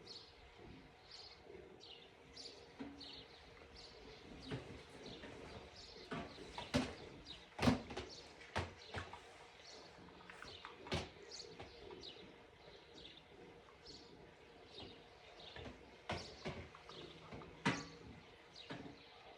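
Faint, repeated short bird chirps, with a few sharp clicks and knocks scattered through, the loudest about seven to eight seconds in.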